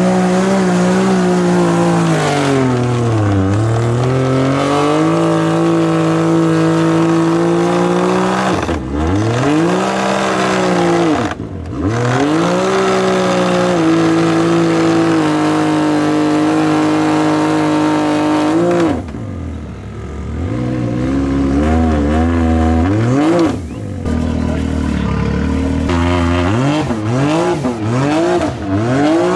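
Can-Am Maverick X3 side-by-side engine running at high revs as its tyres spin in thick, deep mud. The revs sag and recover a few times, drop lower past the middle, then rise and fall in quick throttle blips near the end as the machine fights to get through the hole.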